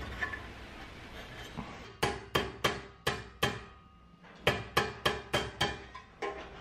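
A dual-face mallet tapping a sheet-metal part against the anvil top of a small bench vise. After a couple of seconds of light handling, it gives a run of sharp strikes about three a second, with a short pause in the middle.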